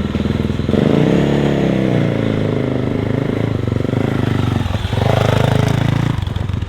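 Yamaha YZ450F single-cylinder four-stroke motocross engine being ridden hard, its note rising and falling with the throttle and gears. The engine note drops briefly about five seconds in and again near the end.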